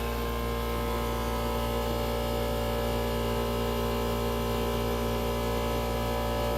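CNC milling machine running steadily while engraving thin brass sheet: a constant hum with several fixed tones over a low drone.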